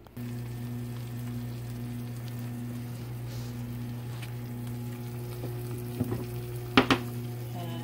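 Shredded cheese frying and sizzling in a nonstick frying pan as it melts, over a steady low hum. A short, louder sound comes about seven seconds in.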